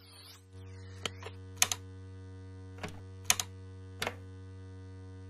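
Soundtrack sound design: a low, steady synthesizer drone held as one chord, with sharp clicks scattered over it, some in quick pairs, like keys or a dial clicking.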